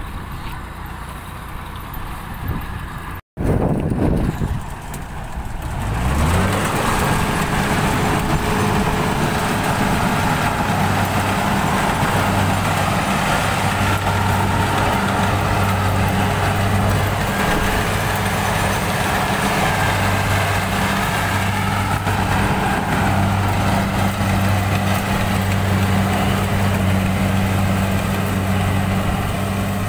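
Kubota combine harvester's diesel engine and machinery running steadily, close by and loud, coming up about six seconds in after a brief dropout and softer noise.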